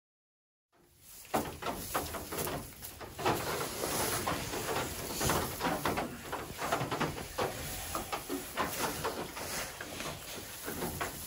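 Straw rustling and crackling, with soft grunting from a Kunekune sow lying in labour in the straw. Starts just after a brief silence.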